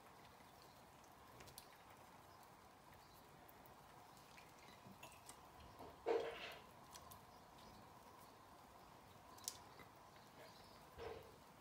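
Quiet hot frying oil with a faint steady background, broken by a few brief soft splashes and taps as samosas are laid one by one into the oil. The loudest is about six seconds in, with a click and another short splash near the end.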